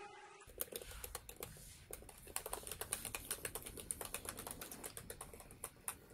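Typing on a laptop keyboard: a quick, irregular run of quiet key clicks starting about half a second in.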